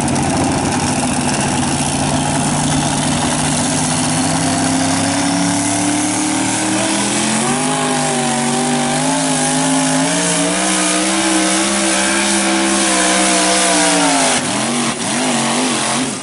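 Modified two-wheel-drive pulling truck's blown engine running at full throttle as it drags a weight-transfer sled. The engine pitch climbs steadily, steps up about seven seconds in and wavers while held high under load, then falls away about fourteen seconds in as the driver lets off, with a few short blips of the throttle near the end.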